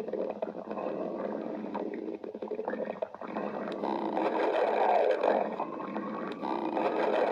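Stomach growling: continuous gurgling rumbles with wavering, whine-like tones. It grows louder about four seconds in, and a slowly rising whine follows near the end.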